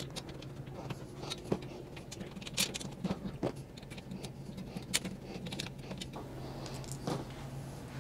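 Scattered light metallic clicks and clinks as thin steel dresser frame pieces and screws are handled and fitted together by hand, over a steady low hum.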